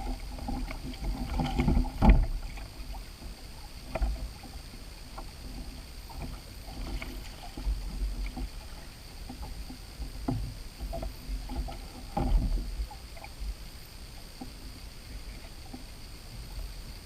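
Irregular knocks, bumps and rustling of handling aboard a small boat over a low steady rumble. The loudest thumps come about two seconds in and again about twelve seconds in.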